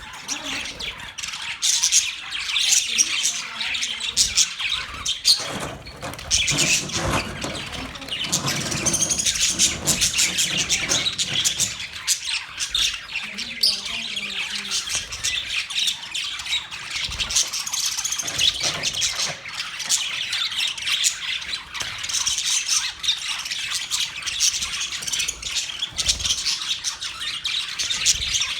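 Several budgerigars chirping and chattering without a break, a dense run of rapid high chirps with the odd squawk.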